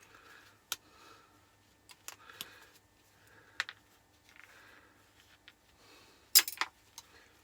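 Scattered small metal clicks and clinks of pliers working a little brass ferrule free from a piece of scrap metal, with a quick, louder cluster of clinks about six and a half seconds in.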